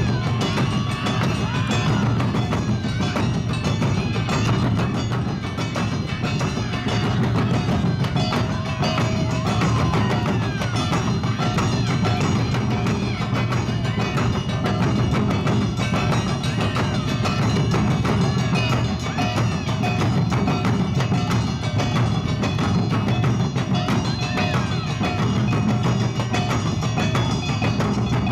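Awa odori festival music played live by a dance troupe's band: drums beating steadily under a ringing kane hand gong, with melody instruments on top.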